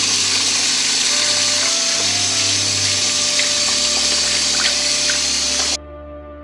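Kitchen faucet running hard into a metal sink over raw chicken: a steady hiss of water that cuts off suddenly near the end. Faint held music notes sound underneath.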